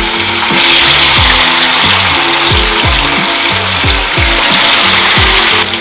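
Batter-coated chicken pieces deep-frying in hot oil in a wok, a loud steady sizzle, as more pieces are dropped into the oil. Under it, background music with a steady beat of about two low thumps a second.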